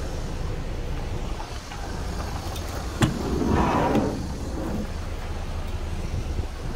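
Kia Carnival door handle pulled and latch clicking about three seconds in, followed by a brief rushing swell as the door moves, over a steady low rumble.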